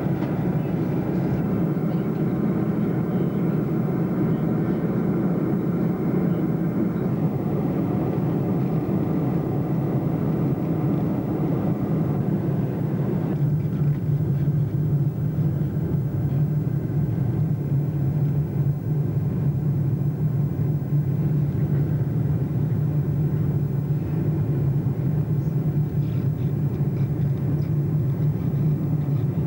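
Steady cabin noise inside a Boeing 747-200 during its climb: a low jet-engine drone with airflow hiss heard through the fuselage. The higher part of the sound drops away about halfway through, leaving the low hum.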